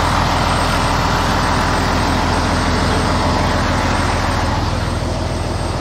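Diesel semi-truck engine idling: a steady, even running noise with no revving.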